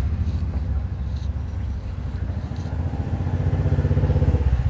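An engine running with a rapid low throb, rising in pitch and growing louder in the last second and a half.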